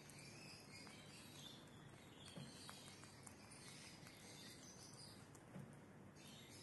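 Near silence: a cat chewing dry split peas, a few soft crunches over faint hiss.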